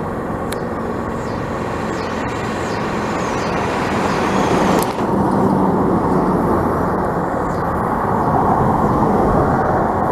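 Steady motor vehicle noise, engine and road sound, growing slightly louder, with a brief dip about five seconds in.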